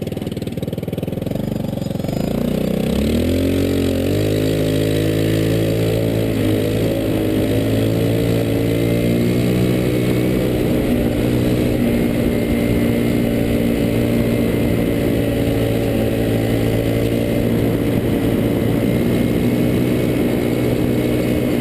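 Go-kart's small gas engine, heard from on board the kart, revving up between about two and four seconds in, then running steadily at high revs.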